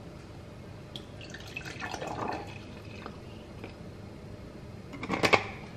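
Juice pouring from a bottle into a glass tumbler, a soft pour about two seconds in, with a few light clicks of glass. A short, sharp knock near the end.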